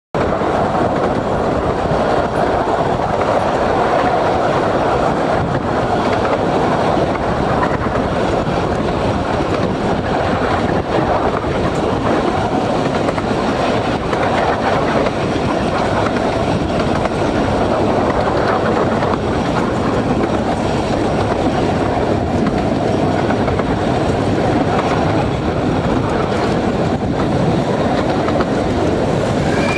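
Steady running noise of a 15-inch-gauge steam train, heard from a carriage near the passing track: the wheels and carriages rumble and clatter without a break as the train runs through at speed behind the steam locomotive Black Prince.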